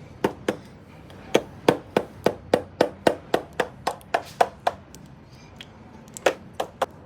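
Repeated sharp bangs on a hard surface. Two come at the start, then a steady run of about three or four a second for some three seconds, a pause, and three more near the end.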